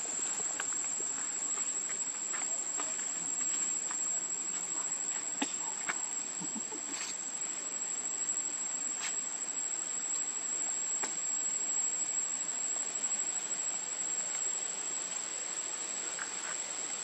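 Steady, unbroken high-pitched drone of insects in forest undergrowth, holding one pitch throughout, with a few faint scattered clicks.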